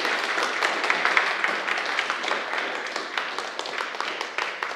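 Audience applauding, many hands clapping at once, gradually dying away toward the end.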